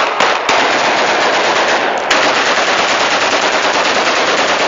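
Celebratory gunfire from AK-47 rifles: a few separate shots, then from about half a second in, dense, unbroken rapid automatic fire.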